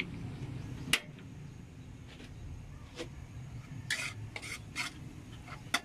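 Scattered light clicks and a few short scrapes of metal cookware being handled, over a low rumble in the first second.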